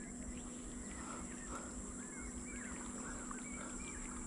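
Birds chirping: many short, arched chirp notes repeating and overlapping, over a steady high insect buzz and a faint low hum.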